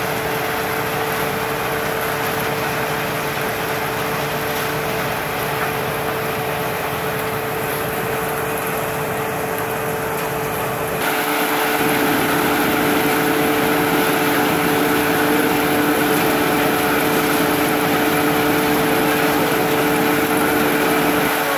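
Engine-driven threshing machine running steadily as Job's tears stalks are fed into it, a continuous hum with a steady tone. It gets louder and brighter about halfway through.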